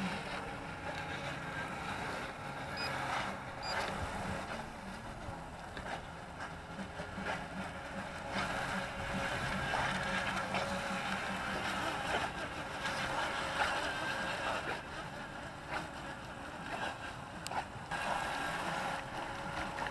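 Two UDI RC Venom remote-control racing boats running across the water, their small electric motors giving a steady whine.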